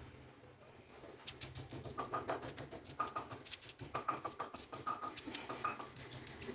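Wooden pestle pounding and grinding green chillies, coriander and mint in a stone mortar: repeated soft knocks and scrapes, a few a second, starting about a second in.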